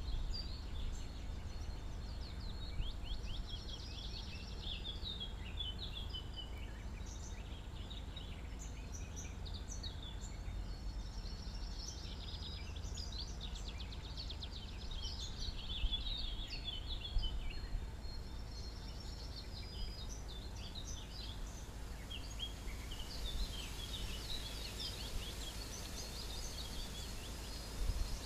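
Songbirds chirping and trilling on and off over a steady low rumble of wind and outdoor background noise.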